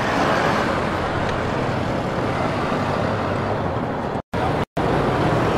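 Street traffic ambience: motor-car engines running steadily with a dense road-noise hum, broken by two brief silent gaps about four seconds in.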